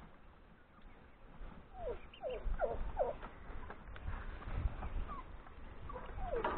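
Chickens giving short calls: a quick run of four about two seconds in and another near the end, over a low rumble.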